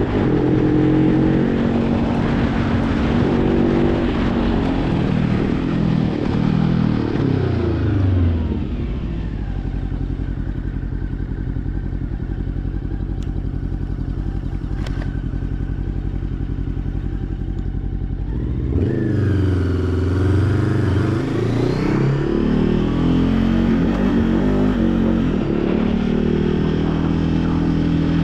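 Motorcycle engine under way. About a third of the way in the revs fall away and settle into a quieter, steady low-rev run for some ten seconds, then the engine picks up sharply with rising revs and runs on steadily.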